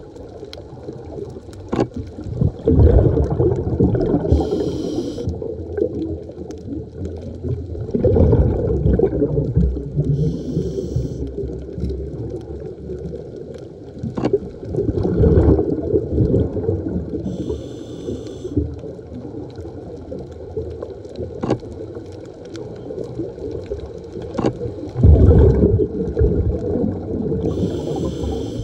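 Scuba diver breathing through a regulator underwater: a short hissing inhale alternating with a long rumble of exhaled bubbles, about four breaths, one every six to seven seconds. Scattered sharp clicks sound in between.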